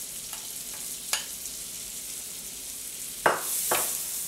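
Chopped onion and garlic sizzling in melted butter in a nonstick frying pan while a plastic spatula stirs them, with a steady high hiss. A few sharp knocks against the pan cut through it, the two loudest near the end.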